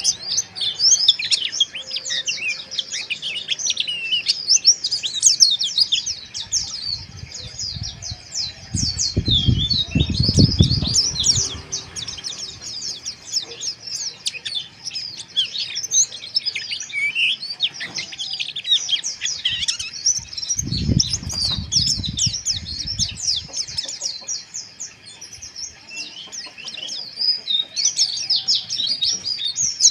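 White-eyes (pleci) singing a fast, rough, continuous twittering chatter of quick high chirps, the 'ngeriwik' song. A low rumble comes in twice, about a third of the way in and again past two thirds.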